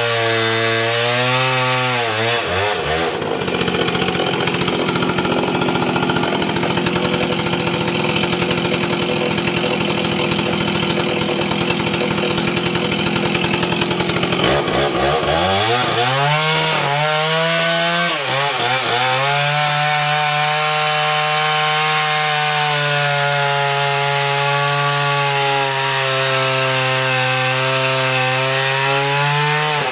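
Vintage Husqvarna two-stroke chainsaw cutting through a log. Its note dips and turns rough through the first half as the chain works through the wood, glides back up about fifteen seconds in, and holds steady for most of the last ten seconds.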